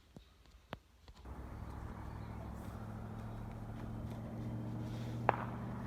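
A few faint clicks, then about a second in a steady low mechanical hum starts and holds, with a single sharp click near the end.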